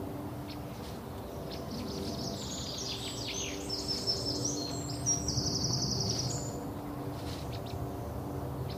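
Birds chirping and trilling, with quick falling notes and a fast trill from a couple of seconds in until past the middle, over a steady low hum.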